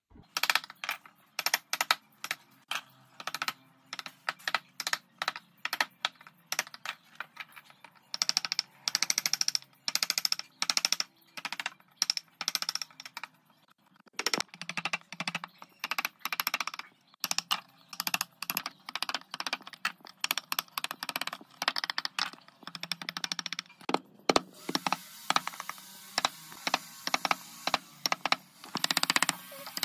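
Hand tools carving wood: a quick, irregular run of sharp clicks and short scraping cuts, several strokes a second, with stretches of hissy scraping.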